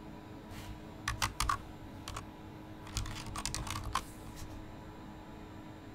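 Typing on a computer keyboard: a short run of keystrokes about a second in, a couple of single key clicks, then a longer run from about three seconds in.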